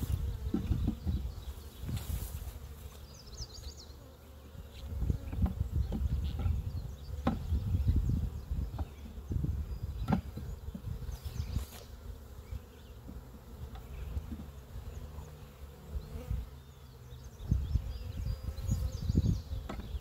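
Honey bees buzzing around an opened hive, with a few sharp clicks and knocks as the beekeeper pries frames loose with a hive tool. A gusty low rumble of wind on the microphone is the loudest sound.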